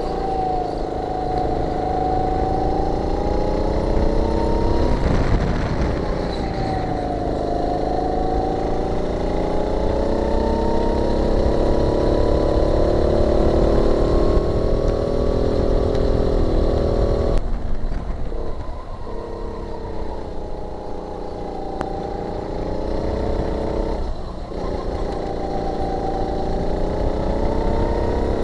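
Go-kart engine running hard, heard from on the kart. Its note drops sharply three times as the driver lifts off for corners and climbs steadily again under acceleration.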